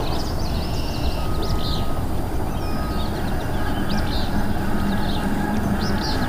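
Steady low rumble with birds chirping in many short calls over it.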